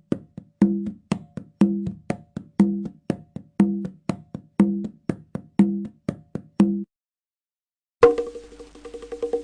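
Percussion sound effect: a pitched drum hit about once a second with lighter, sharper taps between, making a steady pattern of about four strokes a second that stops about seven seconds in. After a second's gap a second drum sample starts, higher-pitched, with quicker strokes over a faint hiss.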